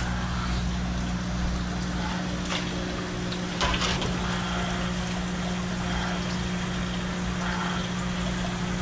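Steady hum of the live-bait tanks' water pumps with running, trickling water, and a brief knock about three and a half seconds in.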